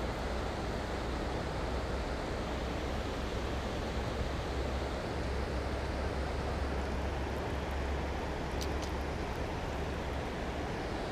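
Steady rushing of water pouring through a dam spillway, with a deep rumble underneath. A couple of faint ticks come about two-thirds of the way through.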